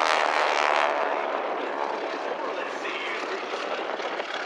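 Radial engines of two Super Stearman biplanes (450 hp Pratt & Whitney) droning in a flypast. They are loud at the start, fade over about the first second as the aircraft pull away, and keep running quieter.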